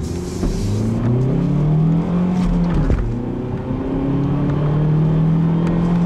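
Ford Focus 2.0-litre four-cylinder engine accelerating hard, heard from inside the cabin. The revs climb, break off about halfway through for a gear change with a brief click, then climb again in the next gear of the five-speed manual.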